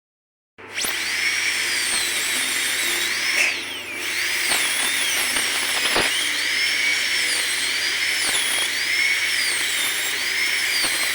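Dental handpiece with a diamond bur cutting through a steel B6 rubber dam clamp: a steady high whine that starts about half a second in, its pitch repeatedly dipping and rising again as the bur bears on the metal and frees up.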